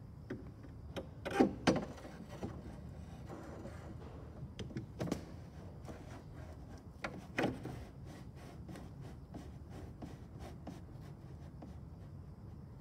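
Cessna 150 nose gear oleo strut knocking and rubbing against its airframe mount as it is worked into place by hand: a few sharp metal clunks, two close together about a second and a half in and others near five and seven seconds, with light ticks between.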